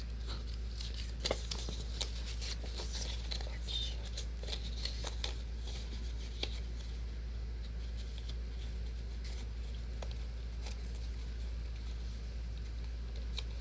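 Paper rustling and crinkling in short, irregular clicks as paper model parts are handled and fitted together, over a steady low hum.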